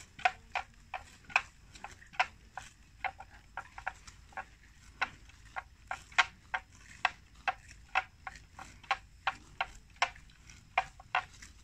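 Water buffalo grazing close by, tearing and cropping short grass: short sharp ripping sounds at an uneven rhythm, two or three a second.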